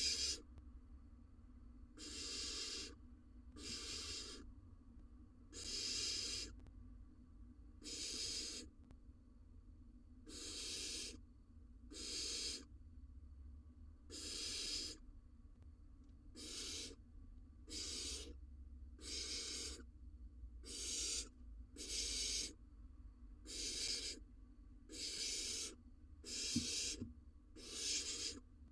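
Barn owl nestling's rasping, hissing begging calls, repeated about every one and a half to two seconds, each lasting under a second, over a steady low hum.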